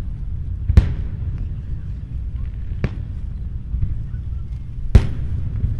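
Aerial firework shells bursting: two loud bangs, about a second in and near the end, and a lighter one in between, over a steady low rumble of further bursts.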